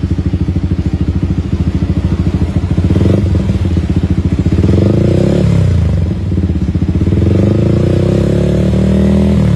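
Yamaha XSR 155's single-cylinder engine running through a newly fitted chrome megaphone-style exhaust. It idles with an even pulse for about three seconds, then is revved twice: first a quick climb that drops off sharply about halfway through, then a slower climb held until near the end.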